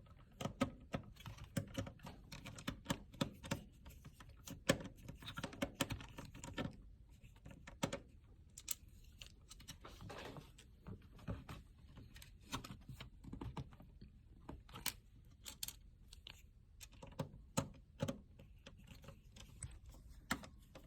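Irregular light clicks and taps of hands and a screwdriver on small screws and plastic parts as an all-in-one computer is screwed back together.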